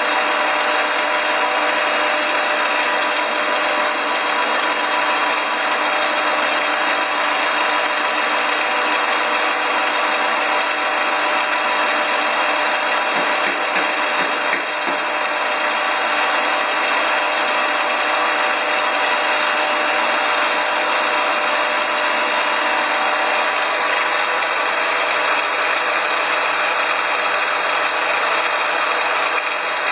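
Soya protein extruder processing line machinery running steadily: a dense, unbroken mechanical clatter with a steady hum, as the extruded chunks pour out of the discharge chute.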